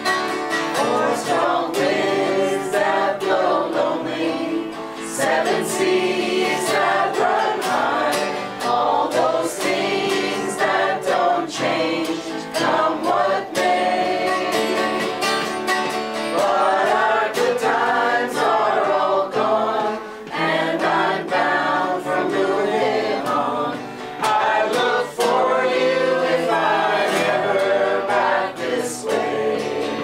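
Mixed choir of men's and women's voices singing a folk song in unison and harmony, accompanied by a strummed acoustic guitar, in phrases with short breaths between them.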